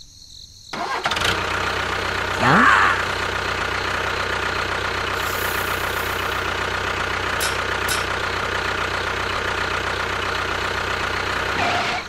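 Tractor engine starting about a second in, with a short rising sweep, then running steadily with a low, even pulse. Two sharp clicks come near the middle.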